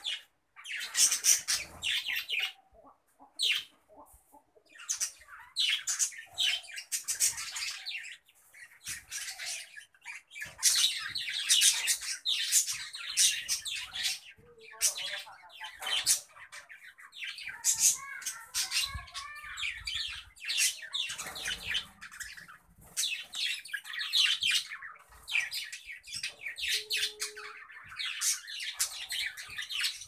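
A breeding colony of budgerigars chattering and squawking, shrill bursts of calls coming one after another with short gaps between them.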